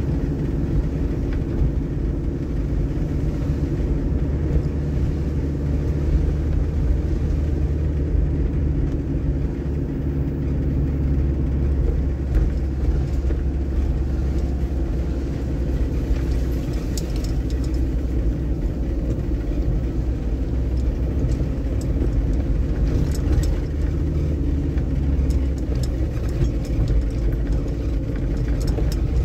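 Hyundai Terracan's engine running steadily as it drives along a rough grass track, heard from inside the cabin as a low drone, with a few faint ticks and knocks in the second half.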